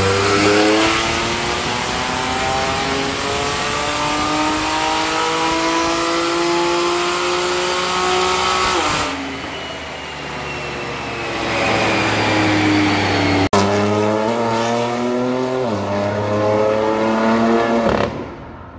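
BMW M3 CS's twin-turbo inline-six through a de-catted Armytrix valved exhaust, climbing steadily in pitch through a long full-throttle dyno pull, then dropping back as the throttle closes about nine seconds in. After a cut it accelerates hard again, its pitch rising, dropping at a gear change, and rising once more before another shift near the end.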